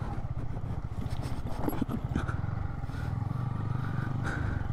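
Yamaha MT15's single-cylinder engine running steadily without revving, with a few faint knocks and scrapes.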